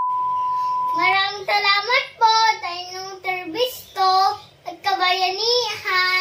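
A steady test-pattern beep of the kind played with colour bars, which cuts off about a second in, followed by a young child singing a few held, gliding notes.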